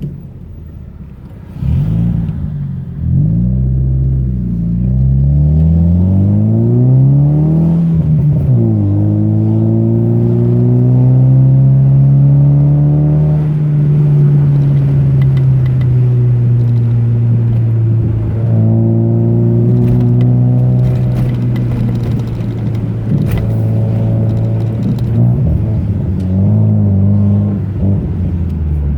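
Car engine revving up hard under acceleration, its pitch climbing for several seconds before dropping sharply at a gear change about eight seconds in. After the shift it runs at fairly steady revs.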